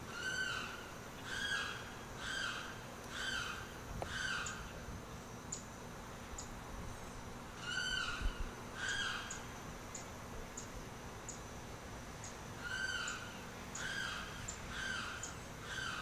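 Limpkin giving its loud, wailing calls in three bouts: five calls about a second apart, then a pause, two calls, another pause, then four or five more.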